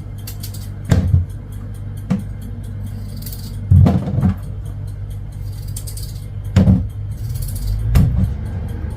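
Background music with a steady low bass line and a drum beat: heavy low hits every second or two over quick, light ticking.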